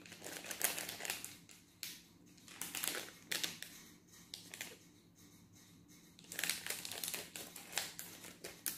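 Foil instant-coffee sachet crinkling as it is handled and cut open with kitchen scissors, in several spells of rustling with short pauses between.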